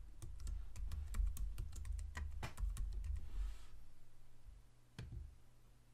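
Typing on a computer keyboard: a quick run of keystrokes, entering a password, that stops about three and a half seconds in, followed by one more single click about five seconds in.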